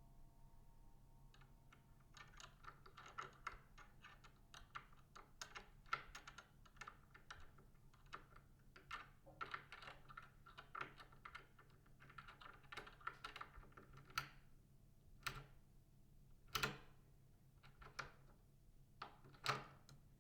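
Faint rapid, irregular tapping of keys, like typing on a keyboard, thinning out in the last few seconds to a handful of louder single taps, over a low steady hum.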